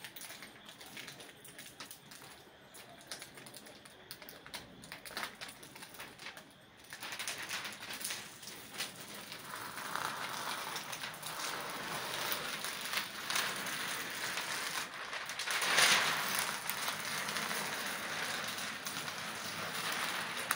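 Clear protective plastic film being peeled off a flat-screen TV, crackling and rustling as it comes away. The crackle grows louder about seven seconds in.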